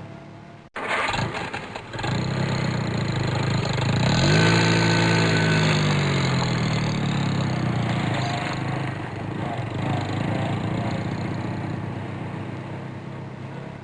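A supercar engine cranked on its starter and catching, then blipped once so its pitch rises and falls back, settling into a high idle that slowly fades. It is preceded by a different engine sound that cuts off abruptly.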